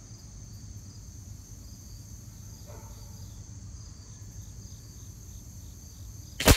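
Insects chirring steadily, then near the end a single sharp crack: a shot from a Winchester Model 70 big bore .357 PCP air rifle.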